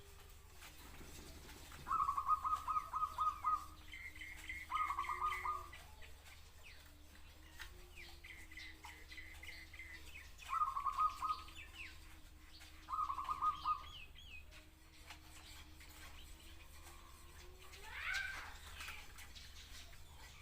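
Zebra dove cooing in four short bouts of rapid staccato notes, with softer higher trilled chirps between them. A longer rising call sounds near the end.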